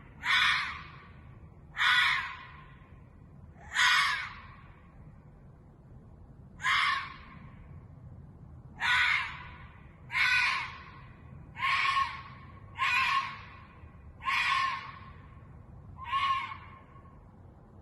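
Ezo red fox (Hokkaido red fox) giving its harsh, hoarse call over and over, about ten times, one every one to two seconds, with one longer pause early on. The later calls end in a brief held tone.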